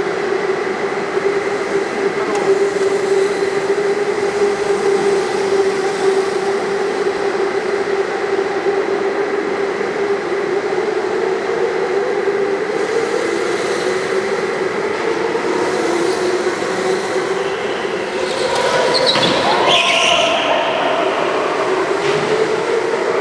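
Go-kart engines running steadily, a sustained mechanical drone whose pitch shifts and rises near the end.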